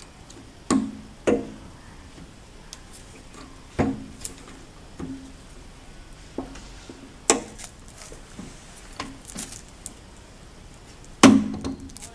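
Sharp knocks and clunks with a short hollow ring, about five main ones and lighter taps between, the loudest near the end. They come from a roll of laminating film on its core being handled and fitted onto a hot laminating machine's roller shaft and against its frame.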